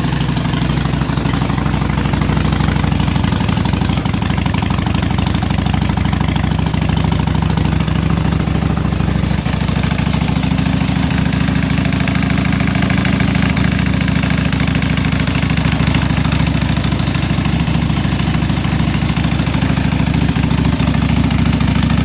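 Harley-Davidson big-twin V-twin engine idling steadily.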